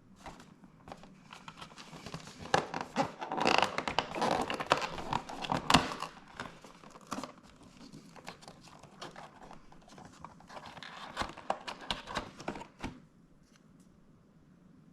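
Packaging being handled and opened by hand: crinkling, rustling and tearing. It is loudest a few seconds in, comes again more softly near the end, then dies away.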